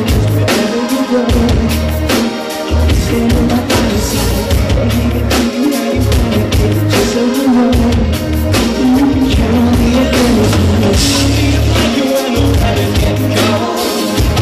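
Live pop-rock band playing loudly: a male lead vocal over electric guitar, keyboard, heavy bass and a regular drum beat.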